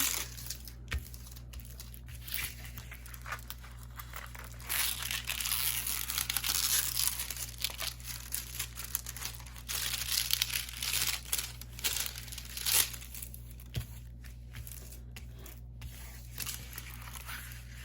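Crinkling and rustling of plastic as a film-covered diamond painting canvas is handled, in uneven bursts that are loudest in the middle.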